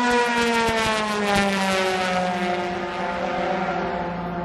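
A race car engine at high revs passing by. Its note glides down in pitch over about two seconds as it goes past, then holds steadier and lower.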